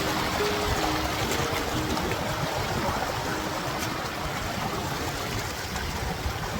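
Rushing water, a steady even rush of flowing water.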